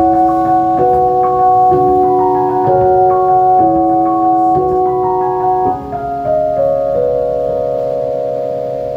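Electric stage keyboard playing a slow run of held chords that change about once a second. The last chord rings on from about two-thirds in and fades near the end.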